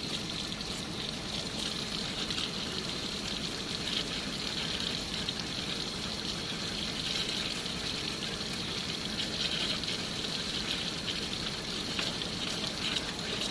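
Water running steadily through a diesel particulate filter as it is flushed with detergent water from a hose, washing soot out of the clogged filter.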